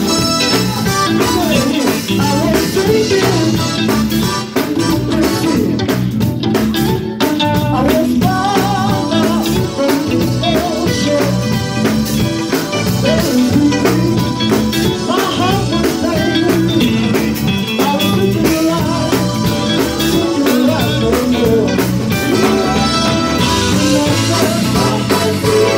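Live gospel music: a male vocal quartet singing together, backed by a band with a drum kit.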